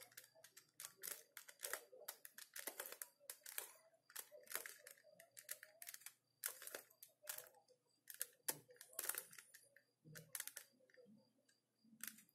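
Faint, quick, irregular plastic clicks and clacks of a 3x3 Rubik's cube as its layers are twisted by hand, building the white cross in the first stage of a solve. The turns come thickly at first and thin out over the last few seconds.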